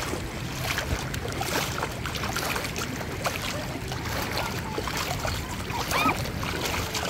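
Shallow sea water lapping and sloshing, with a crackle of small splashes and wind buffeting the microphone, and a faint distant voice about six seconds in.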